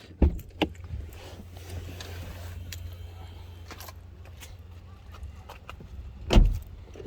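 A Skoda Rapid's door latch clicks open, and a low rumble comes in as someone gets out of the car, with small handling clicks. About six seconds in there is a loud, heavy thump.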